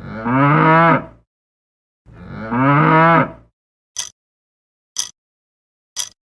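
A cow mooing twice, each moo a drawn-out call lasting just over a second. Then three short sharp clicks follow, one a second.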